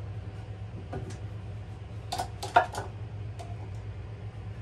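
Glass jars with metal lids being shifted and set down on a wooden shelf: a few light clinks and knocks, then a quick cluster of them about two seconds in, the loudest in the middle of that cluster. A low steady hum sits underneath.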